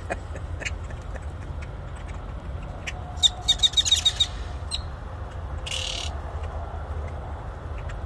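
Flock of grackles calling, with a quick run of about eight sharp clacking notes a little past three seconds in and a brief harsh hiss near six seconds. A steady low rumble runs underneath.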